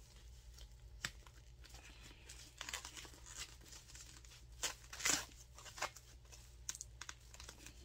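Taped-on protective wrapping being pulled and crinkled off a handbag's handle and hardware: scattered crinkling and short tearing sounds, the loudest rip about five seconds in.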